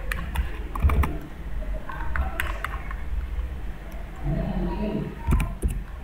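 Computer keyboard keystrokes and mouse clicks, coming in small scattered clusters over a low steady hum.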